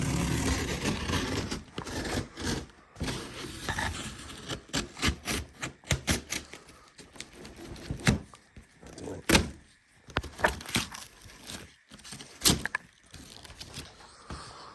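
A cardboard shipping box being handled and torn open by hand: irregular knocks, scrapes and thuds, with a few sharp, louder knocks in the second half.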